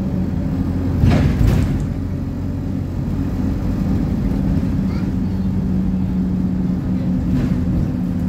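Interior sound of a single-deck bus under way: steady engine hum and road noise, with a brief louder rush of noise about a second in and again, fainter, near the end.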